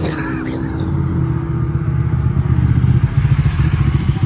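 A supercar's engine running at low revs as the car approaches, a deep note with a rapid pulse that grows steadily louder. There is a short rush of noise at the very start.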